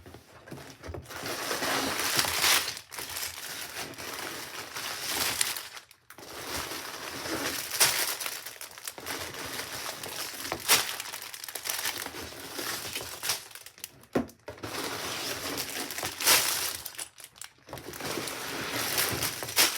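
Cardboard box being opened and plastic parts bags being handled: continuous crinkling and rustling with sharp crackles and short tearing sounds.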